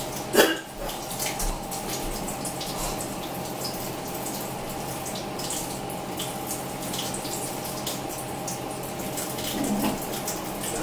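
Kitchen tap running as raw chicken is rinsed under it in the sink, the water splashing unevenly, with a sharp knock about half a second in and a steady hum underneath.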